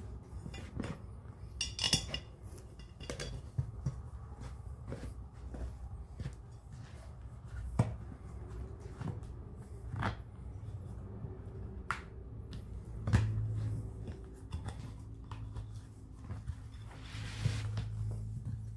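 Hands working a soapy rubber inner tube into a lawn mower tire on its rim: scattered small clicks, knocks and rubbing of wet rubber against the tire and rim, over a low steady hum.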